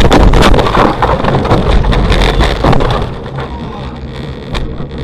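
A car crash heard from the dashcam inside the crashing car: a loud impact right at the start, then about three seconds of crunching and knocking as the windshield cracks. It eases into a quieter steady noise, with one sharp knock near the end.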